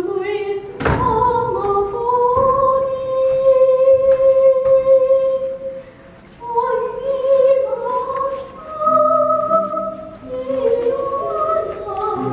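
A young woman singing a Korean song by herself, unaccompanied, in long held notes, with a pause about six seconds in. A sharp knock sounds about a second in, and a lighter one shortly after.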